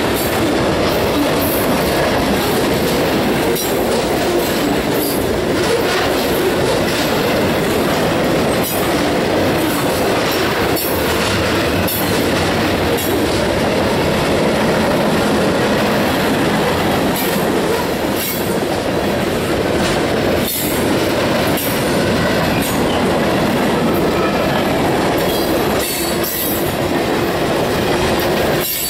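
Cars of a manifest freight train rolling past close by: a steady loud rumble of steel wheels on rail, with irregular clicks and clacks as the wheels cross rail joints.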